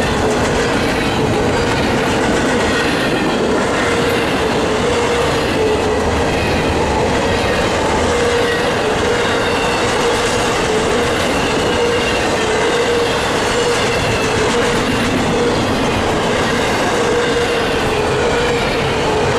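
Cars of an intermodal freight train rolling past at speed: a steady rumble and clatter of steel wheels on rail, with a sustained ringing tone from the wheels and rails.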